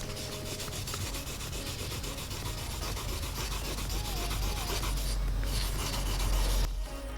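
Sandpaper rubbed back and forth over a clear-coated plastic mirror cap, sanding down paint runs in the clear coat. A steady scratchy rubbing that thins briefly about five seconds in and stops shortly before the end.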